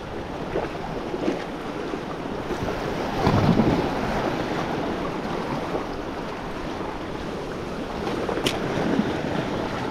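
Small sea waves washing over and around shoreline rocks, a steady wash of surf with one louder surge about three seconds in.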